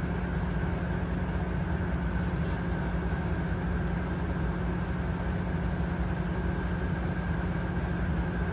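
Steady low mechanical hum, like an engine idling, with a faint steady whine above it; it holds even throughout with no breaks.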